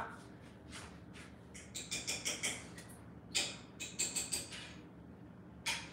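A metal pot handled on a gas stove: a few short, high-pitched squeaky scrapes of metal on metal, over a faint steady low hum.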